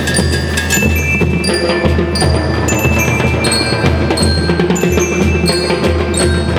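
A school rhythm band plays: bell lyres carry a ringing metallic melody over snare drums and a bass drum.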